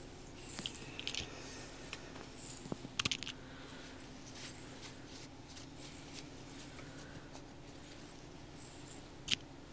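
ASMR hand sounds close to the microphone: soft scratching and brushing strokes in quick, irregular bursts, with a few sharp clicks, the sharpest near the end. A faint steady hum runs underneath.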